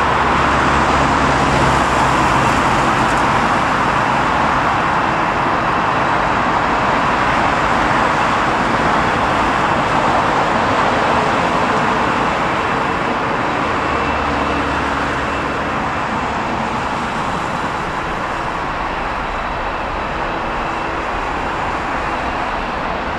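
Jet airliner taking off, its engine noise slowly fading as it climbs away. Road vehicles pass close by at the start and again about 14 seconds in.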